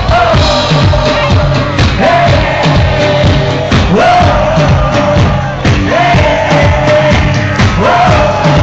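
Live band playing a house-style dance track, with a drum kit keeping a steady beat. A melodic line swoops up and repeats about every two seconds.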